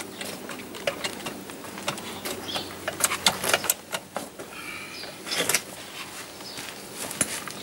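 Hydraulic bottle jack being pumped under a tractor's front axle, raising the wheel: scattered metallic clicks and knocks from the jack handle, irregularly spaced.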